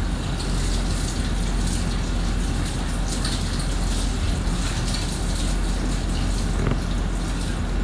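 Steady sizzling hiss of a pan of chicken biryani cooking on a hotplate, with faint crackles and a low hum underneath.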